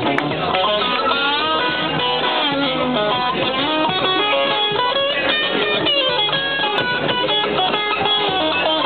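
A live rock band playing amplified music, with electric guitar to the fore and sliding, bent notes through the passage.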